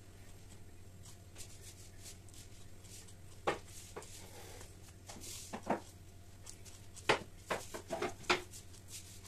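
Kitchen knife scoring a halved avocado held in the hand: a few light, sharp clicks of the blade, spread out at first and then coming close together near the end, over a faint low steady hum.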